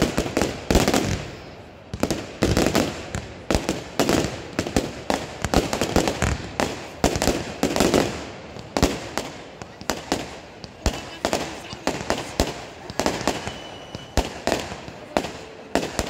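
Consumer firework batteries (multi-shot cakes) going off in rapid succession: a continuous stream of shots and aerial bursts, several bangs a second.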